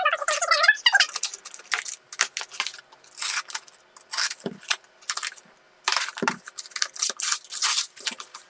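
Cardboard parcel being opened by hand: a quick run of irregular scratching, crinkling and tearing noises from the cardboard and its wrapping, with short pauses in between.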